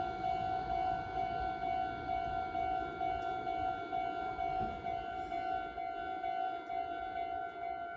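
Japanese level-crossing warning bell ringing steadily: an electronic alarm tone repeating at an even pace. Beneath it is a low rumbling noise that thins out about five seconds in.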